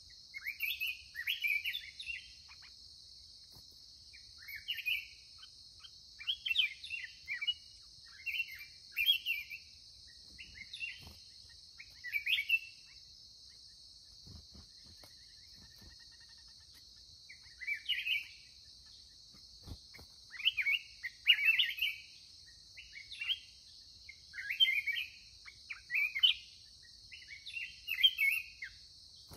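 Black-crested bulbuls singing short, bubbling warbled phrases every second or two, over a steady high drone.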